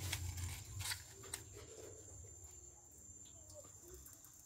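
Dry firewood sticks being handled and set into a wood-burning stove's firebox, with a couple of light knocks about a second in.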